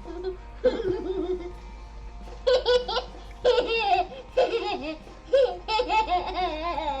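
A young child laughing in a series of short, wavering bursts, about one a second, starting a couple of seconds in.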